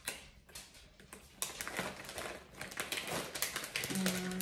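Plastic packaging crinkling and crackling as a pouch is handled and opened, a run of quick, irregular crackles that gets busier after about a second and a half.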